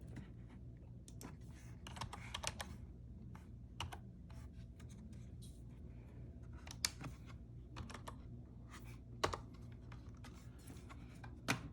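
Typing on a Logitech MK345 wireless keyboard: soft, irregular key clicks, with a few sharper clicks a couple of seconds apart in the second half.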